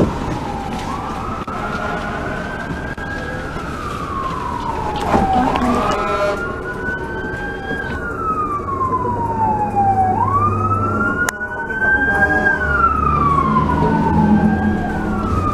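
Fire truck siren wailing, its pitch slowly rising and falling every few seconds, with a second siren wailing slightly out of step with it. It is heard from inside a streetcar, over a low rumble.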